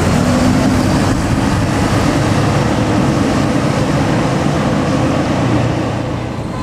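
Large bus engine and road noise as a bus drives past, a loud steady rumble that eases slightly near the end.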